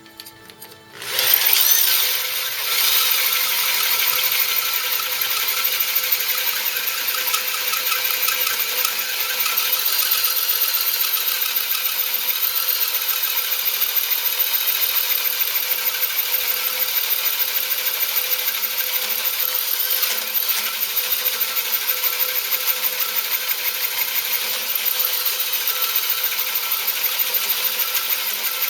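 Drill-driven hole saw cutting through the cast-iron base of a mill: a steady, high-pitched cutting noise with a fast, even pulsing. It starts about a second in.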